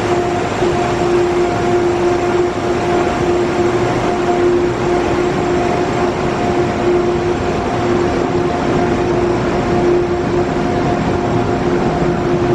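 An Amtrak train with GE P32AC-DM diesel locomotives moving slowly past along a station platform: a steady rumble of rolling wheels with a constant droning hum. One of the locomotives, P32 715, is dead and being hauled.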